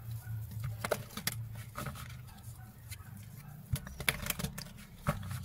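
A deck of oracle cards being shuffled and split by hand: soft, irregular clicks and flutters as the cards slide and tap against each other, over a low steady hum.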